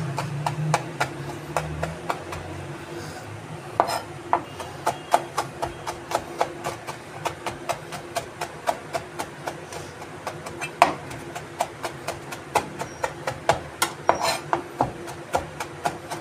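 Chef's knife chopping fresh red chillies on a plastic cutting board: a steady run of knife knocks on the board, about two to three a second, with a faint steady hum underneath.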